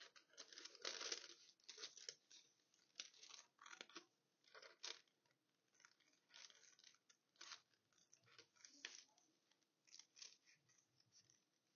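Small scissors cutting fabric in short, irregular snips, faint, with thin paper crinkling as it is handled.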